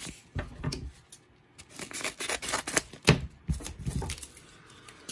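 Yellow bubble-padded paper mailer being handled and torn open: irregular crinkling, rustling and sharp clicks, with a brief lull about a second in and one loud snap about three seconds in.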